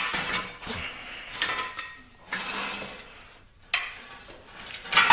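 Metal motorcycle parts clattering and scraping as a removed swing arm is handled and set down, in irregular scrapes with a sharp knock a little before the end.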